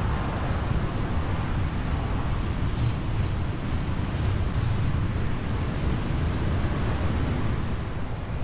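Steady rumbling wind noise on the microphone, mixed with road traffic.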